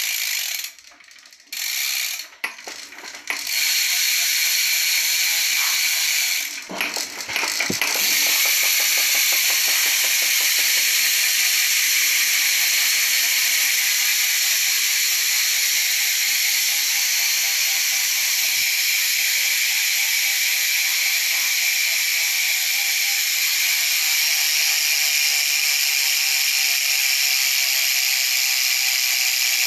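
Profile Racing Mini BMX rear hub freewheeling as the wheel is spun: the freehub clicks so fast it makes a cricket-like buzz. A few short spins come in the first several seconds, then a continuous buzz from about eight seconds in that slowly falls in pitch as the wheel coasts.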